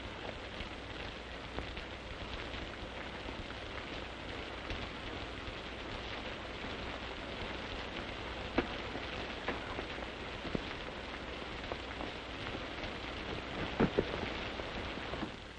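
Steady hiss of heavy rain over a steady low hum, with a few sharp clicks about halfway through and near the end.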